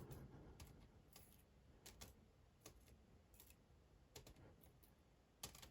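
Faint, light clicks at irregular spacing, about eight in all, as the small pin springs of a Dom IX Twinstar lock are dumped out of the lock housing's chambers.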